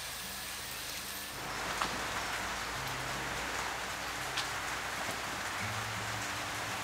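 Steady rain falling, a little louder from about a second in.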